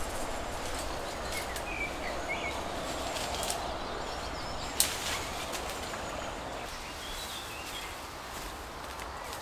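Outdoor ambience: a steady hiss with a few short bird chirps, and one sharp click about five seconds in.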